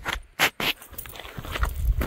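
Footsteps crunching on dry leaves and dirt: two sharp crunches about half a second in, then softer steps over a low rumble.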